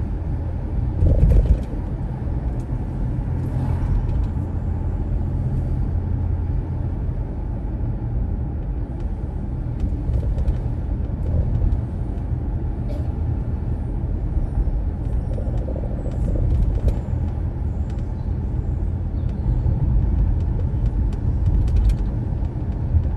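A car driving: a steady low rumble of road and engine noise, with a brief louder bump about a second in and scattered light clicks.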